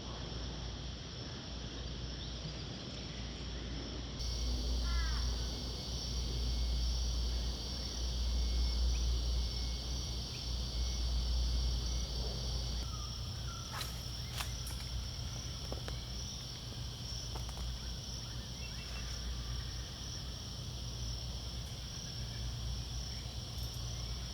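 A steady chorus of insects trilling in two high, unbroken bands, over a low wind rumble on the microphone. A few short chirps come about five seconds in, and two sharp clicks near the fourteen-second mark.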